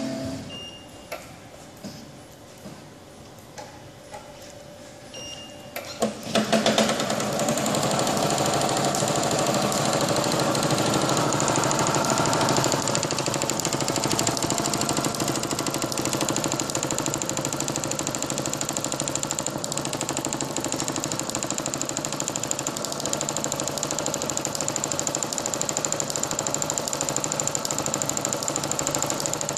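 Spangle film motif machine starting up about six seconds in, after a few isolated clicks, then running steadily with a fast, continuous mechanical clatter.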